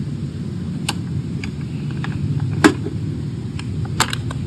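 Metal 50-cal ammo can being unlatched and its lid opened: a few sharp metallic clicks and knocks, the loudest about two-thirds of the way in, over a steady low rumble of traffic.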